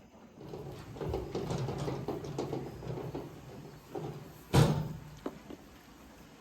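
Rattling and knocking, then one sharp bang about four and a half seconds in and a lighter knock just after.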